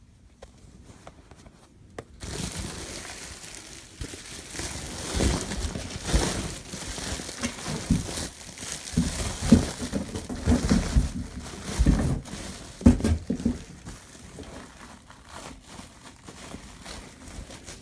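Rustling and crinkling of a pet bed mat and blankets being handled and moved around, with soft thumps as they are set down; it starts about two seconds in and dies down over the last few seconds.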